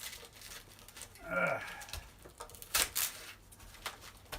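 Styrofoam packing being pulled apart and shifted by hand: a series of short crackles and scrapes, with a brief grunt of effort about a second and a half in.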